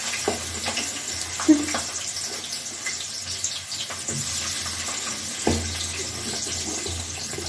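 Chopped onions sizzling in hot soybean oil in a kadhai. The steady hiss starts suddenly as they go in, with a few light knocks of the spatula against the pan.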